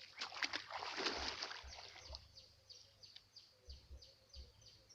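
Water splashing and sloshing for about two seconds, then a bird calling over and over in short falling chirps.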